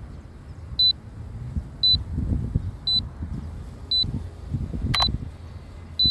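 Drone remote controller's low-battery warning: six short high beeps, about one a second. Strong wind rumbles on the microphone underneath, with a single click about five seconds in.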